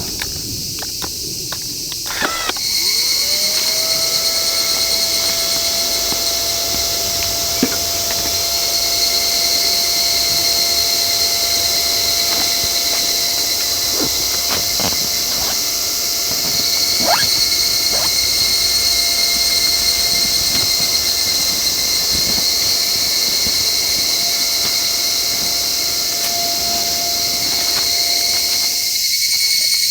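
Steam whistling steadily. The high thin tone slides up into pitch a couple of seconds in, holds level, and cuts off near the end, with a few sharp crackles along the way.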